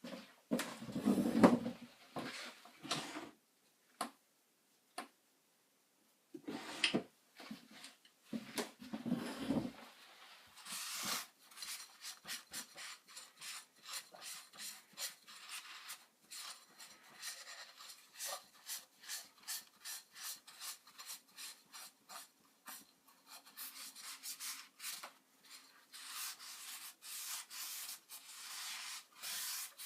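Scattered handling knocks, then from about a third of the way in a long run of hand rubbing strokes, several a second, like filing or sanding a part by hand.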